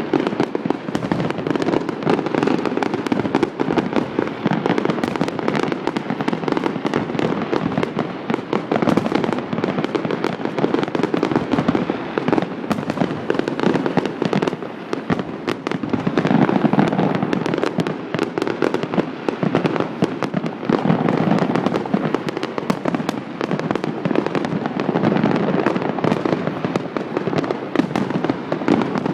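Fireworks display in full barrage: a continuous run of overlapping aerial shell bangs and crackling, with no pause.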